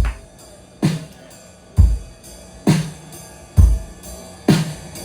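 Drum kit opening a song with a slow, steady beat: a kick-and-snare hit about once a second, with lighter strokes between.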